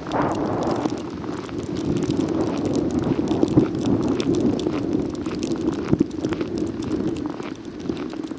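Footsteps crunching through snow, heard as irregular crackling over a steady rush of wind on the microphone.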